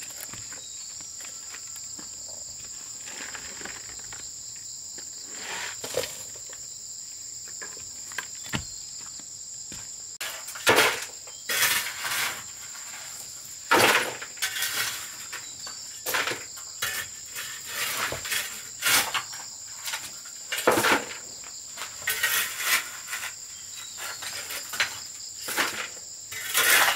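Insects drone steadily in a high, even chorus. From about ten seconds in, irregular scrapes and knocks come and go, the loudest sounds in the stretch.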